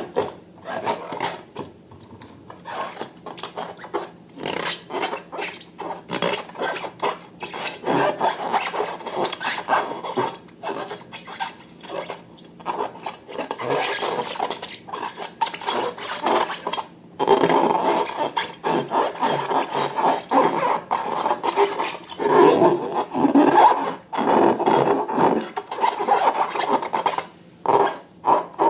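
Slime being worked by hand, giving rapid, irregular sticky crackles and rasping strokes. These come in bursts with brief pauses.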